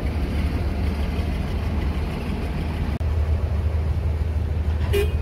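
Diesel engine of a self-propelled combine harvester running with a steady low rumble as it drives past, towing its header trailer.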